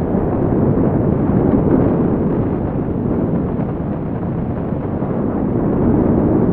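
Strong wind buffeting the microphone at high altitude: a steady, low rush of noise with no distinct events, swelling slightly about two seconds in and again near the end.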